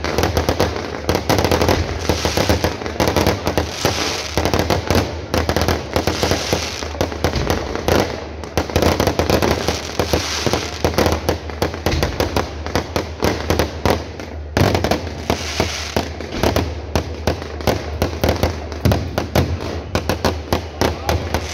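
Aerial fireworks bursting overhead, a dense, continuous crackle of many sharp pops and bangs in quick succession.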